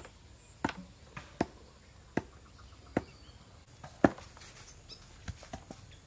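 Knife chopping on a cutting board: irregular, sharp single strokes, roughly one a second.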